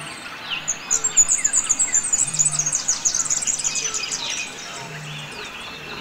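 Wild wetland birds calling: a fast, loud run of high, sharp chirps begins about a second in and lasts about three seconds, over scattered calls from other birds. A short low note also sounds twice.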